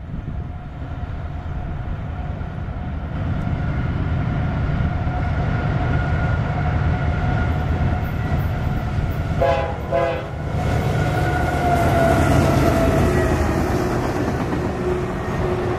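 CSX freight diesel locomotives approaching and passing close: a deep engine rumble that builds as they near, with a steady whine that drops in pitch as the lead unit goes by. Two short horn blasts sound about two-thirds of the way through.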